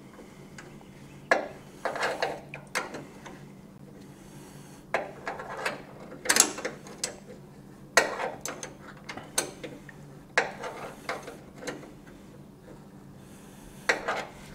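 A ratchet wrench clicking in short, irregular strokes as the nut at the top of a Massey Ferguson 240's fuel filter is tightened down, tighter than the glass sediment bowl beneath it can take.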